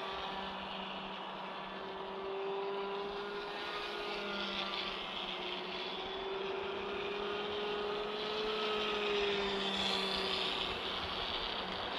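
MF1904 2500KV brushless motor spinning a GWS 7035 propeller on a small foam RC plane in flight: a steady buzzing whine that drifts slowly up and down in pitch as the plane flies around.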